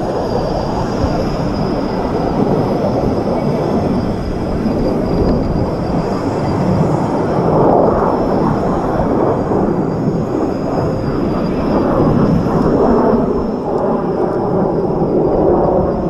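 Kawasaki T-4 jet trainers flying overhead, their jet engines making a steady rushing noise that swells and eases slowly. A thin, steady high tone runs above it.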